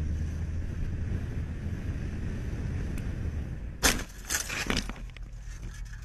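Low steady rumble of a car in slow traffic. About four seconds in there is a sudden loud bang, followed by a quick burst of sharp knocks and rattles as the camera is jolted about.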